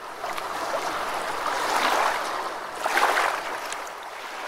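Rushing, splashing water sound effect, swelling twice and then beginning to fade.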